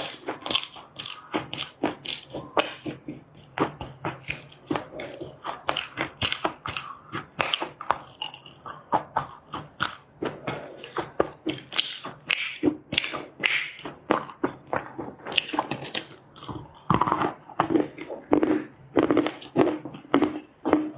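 Lumps of loess clay being bitten and chewed, a steady run of sharp crunches a few times a second.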